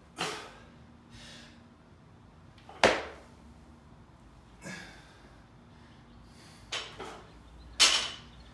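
Loaded barbell with bumper plates during a snatch balance. There is a sharp impact about three seconds in as the lifter's feet stamp down in the overhead squat catch. Near the end a loud thud comes as the bar is brought down to the rubber floor, with lighter knocks of the bar and plates between.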